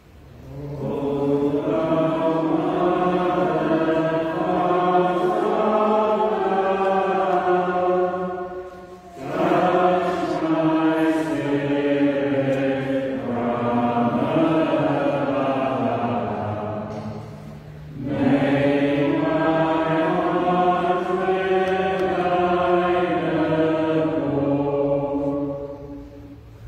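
Voices singing a slow hymn verse between two Stations of the Cross, in three long sung phrases with short pauses for breath.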